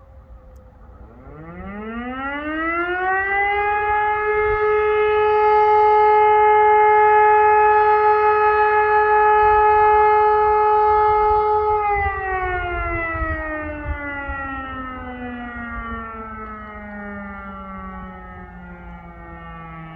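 E57 electromechanical siren sounding one blast of a test alarm: about a second in the rotor spins up and the howl rises to a steady tone held for about eight seconds, then the power cuts and the pitch falls slowly as the rotor winds down. At the start, the tail of the previous blast is fading out.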